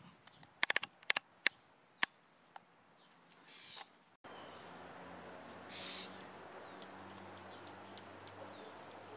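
A handful of sharp clicks in quick succession near the start. After a brief cut, an outdoor background follows, with a low steady hum and a bird calling faintly.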